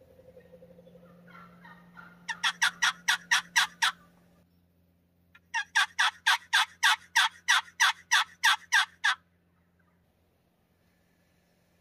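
Turkey yelping: two runs of loud, raspy yelps, about eight notes and then about a dozen, roughly five a second.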